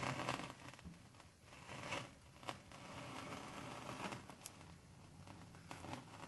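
Faint gritty scraping and crunching of a rock block rolling on the tilted edge of its cone-shaped base over sand, with a few small clicks.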